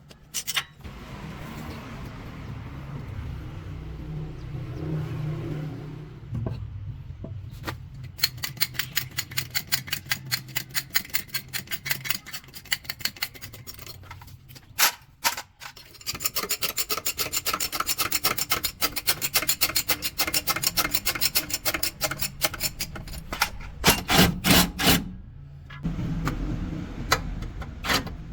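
Hand-tool work on a truck gearbox: a low steady hum, then long runs of quick, evenly spaced rasping strokes, about five a second, with short pauses. Near the end come a few heavy knocks.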